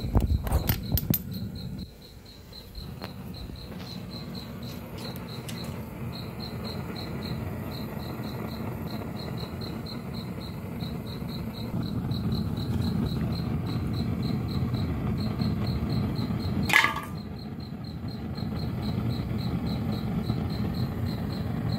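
Gas burner of a homemade mini foundry running with a low, steady rushing flame, with sharp knocks in the first second and a half. A high chirp repeats about three times a second throughout, and a brief falling squeal sounds about three-quarters of the way through.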